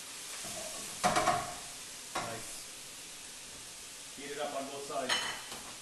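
Food frying in hot oil, a steady sizzle, with a couple of sharp utensil knocks about a second and two seconds in.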